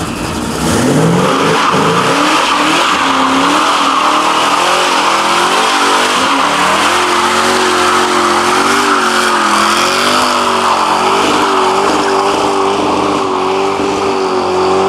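A muscle car's V8 doing a street burnout: the revs climb over the first couple of seconds and then hold high with a slight waver while the rear tyres spin and squeal.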